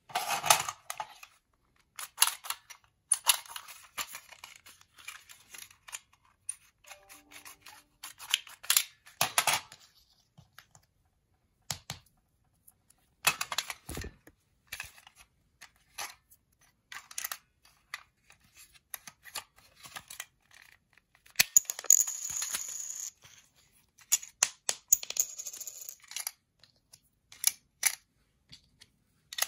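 Plastic clicks and clatter of a green toy mini-disc shooter being picked up, worked, aimed and loaded, with small plastic discs clattering on a wooden floor. One longer rattle comes about two-thirds of the way in.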